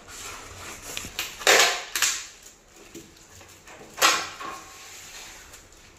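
Insulation and tape being handled and wrapped around split-AC refrigerant pipe joints: rustling and crinkling, with two loud bursts of rustling, one about a second and a half in and a sharper one near four seconds.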